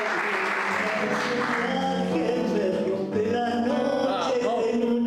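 Applause dying away over the first second or so, then acoustic guitar and a woman's voice singing.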